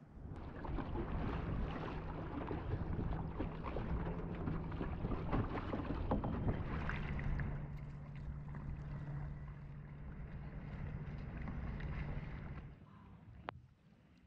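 Kayak paddling on harbour water: water splashing and lapping close to the microphone, with wind noise and a low steady hum underneath. It cuts off suddenly near the end, leaving quieter water and a single click.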